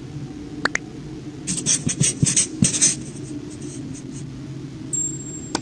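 Marker scribbling on a whiteboard in a quick run of short scratchy strokes about a second and a half in, with a couple of single clicks before and after, over a steady low hum.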